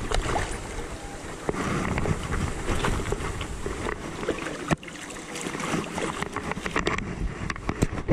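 Outdoor noise with wind rumbling on the microphone, overlaid by scattered clicks and knocks, one sharper knock a little past halfway.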